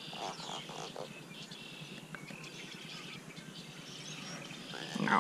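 Small birds chirping, a scatter of short high calls, over faint outdoor background noise.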